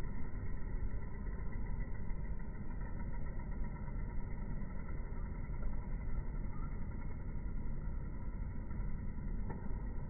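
Steady, muffled low rumble of outdoor background noise, even throughout with no distinct events.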